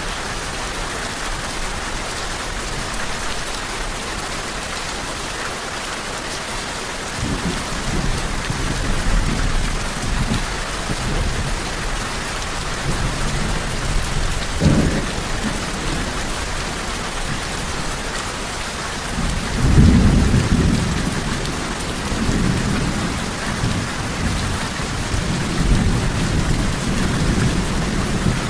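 Steady heavy rain hissing throughout, with low thunder rumbling in from about a quarter of the way in and swelling loudest a little past two-thirds of the way through.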